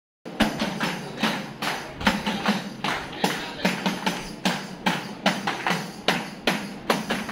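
Tambourine (hand-held frame drum with jingles) beaten in a steady, repeating rhythm, about two to three strong strikes a second with softer ones in between.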